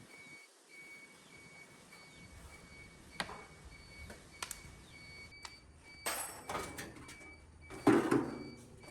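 Workshop handling noises: a few sharp clicks, then two louder scraping knocks, the second and loudest near the end.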